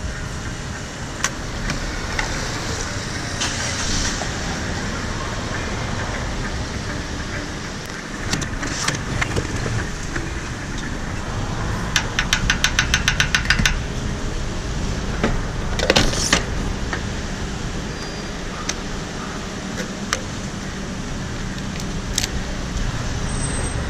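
Petrol running from a pump nozzle into a motorcycle's fuel tank, over a steady low rumble. A quick run of clicks, about nine a second, comes about halfway through, and a few sharp knocks follow a few seconds later.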